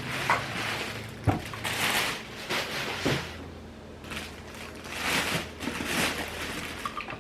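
Packaging being handled while a stand mixer is unboxed: several rustling, scraping swishes with a few sharp knocks.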